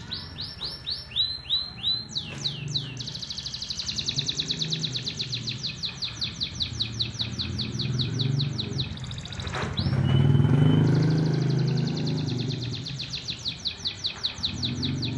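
Domestic canary singing: long rolling trills of fast, evenly repeated high notes. About ten seconds in the trill breaks briefly for a falling sweep and a single held whistle, then the rapid trills start again.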